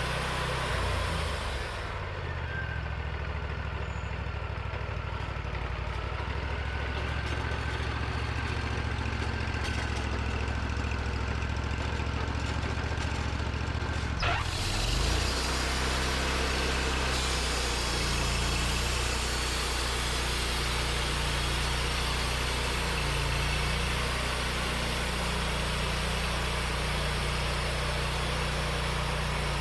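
Portable sawmill's engine running steadily, with a short rise in pitch about halfway through, after which a denser hiss sets in.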